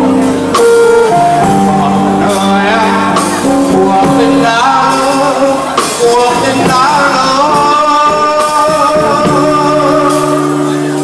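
A man sings a slow Vietnamese love ballad into a microphone over backing music, his voice amplified through the sound system. In the second half he holds a long note that wavers in pitch.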